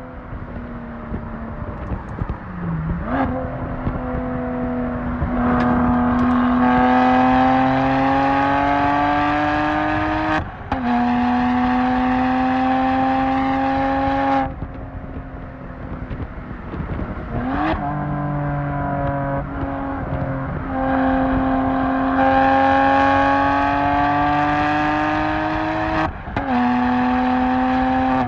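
BMW 1M Coupe's twin-turbo N54 straight-six, breathing through a full Akrapovic titanium exhaust, pulling hard through the gears. The note rises steadily through each long pull and dips briefly at every gear change, with a few seconds of lighter throttle about halfway through.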